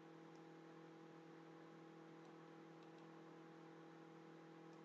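Near silence: faint room tone with a steady low electrical hum and a few very faint clicks.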